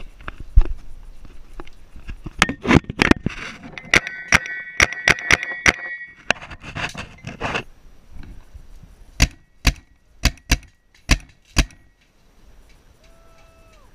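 Paintball marker shots: sharp pops in quick irregular volleys, then about six single shots spaced roughly half a second apart near the end.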